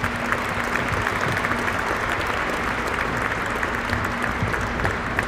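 Audience applauding, a dense and steady clapping from a large crowd.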